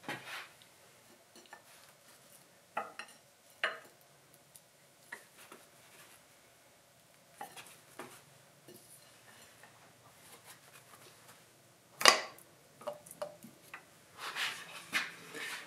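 Scattered metallic clinks and knocks from tools and parts being handled while a tractor's diesel cylinder head is being readied for removal, with a sharper knock about twelve seconds in and a few more clinks near the end.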